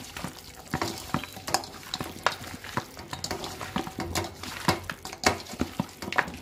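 Hand mixing wet curry and potato pieces in a stainless steel bowl: irregular squelches, scrapes and clicks against the metal, several a second.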